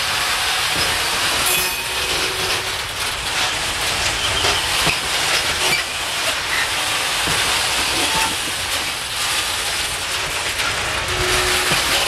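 Loaded open coal wagons rolling slowly past, their steel wheels clattering over rail joints, with a steady rumble and a few short squeals.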